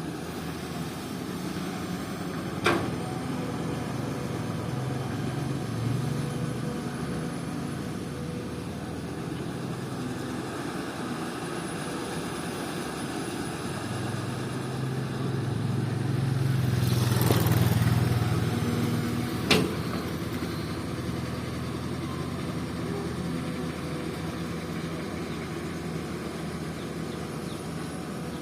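Komatsu PC200 excavator's diesel engine running steadily, swelling louder for a few seconds past the middle, with two sharp knocks, one early and one just after the loud spell.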